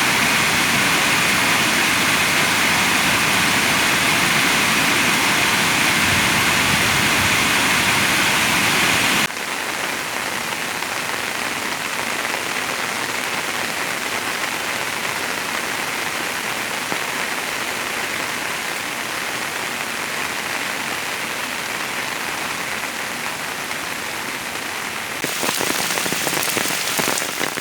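Heavy rain falling in a steady hiss. The level drops suddenly about nine seconds in and rises again near the end.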